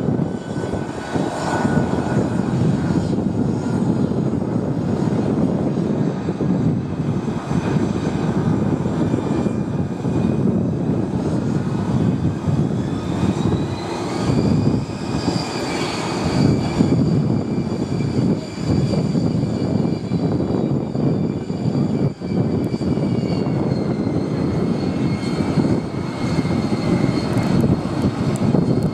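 Aero L-39 Albatros jet trainers taxiing, their turbofan engines whining at low power over a steady rumble. The whine climbs in pitch about halfway through, then holds steady.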